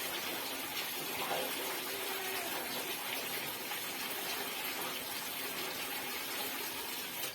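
Running water, a steady hissing rush.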